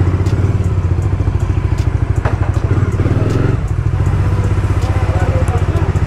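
Bajaj Dominar 400's single-cylinder engine running at low revs with an even, fast exhaust pulse, and a single sharp click about two seconds in.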